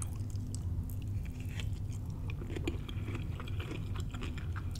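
Close-miked chewing of a spoonful of shrimp and vegetable stir fry with rice: a run of small, irregular wet mouth clicks, over a low steady hum.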